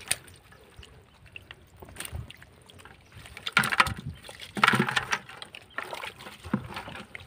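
Wet handling noises as a catch, a catfish, is worked out of a muddy fishing net: water and mud sloshing, the net rustling and scattered knocks, with a few louder splashy bursts about halfway through.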